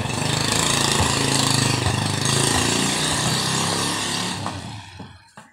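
A small engine running steadily and loud, fading away over the last second.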